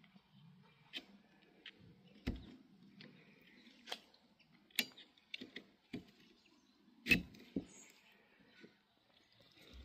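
Scattered plastic clicks and knocks from handling a Skoda Octavia III's rear wiper arm and blade as the blade is worked off its mount. The loudest is about seven seconds in, followed by a smaller click just after.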